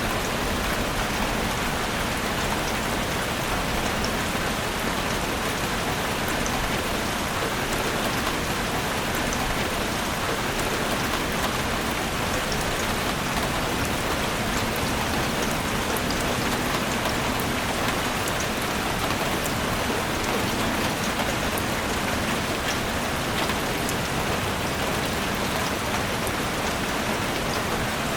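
Steady rain falling on forest foliage, an even hiss with scattered drops pattering.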